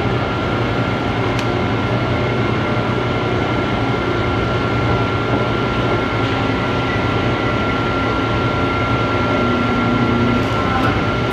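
Hydraulic press running as its ram pushes down onto a steel plate: a steady low hum of the pump with a thin steady whine over it, and the whine stops near the end.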